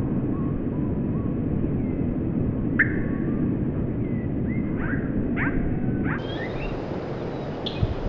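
Small songbirds, such as the tits feeding here, giving a few short, sharp chirps: one loud chirp about three seconds in, then a quick run of them a couple of seconds later. Under them runs a steady low rumble.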